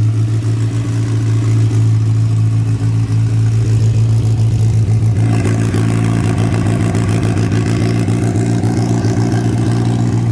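Turbocharged VW Voyage's carbureted AP four-cylinder engine idling steadily while it warms up, its note getting harsher about five seconds in.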